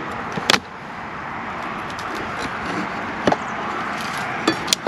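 Wooden beehive lid being pried open: a few sharp knocks and clicks, about half a second in, around three seconds in and twice near the end, over a steady background noise.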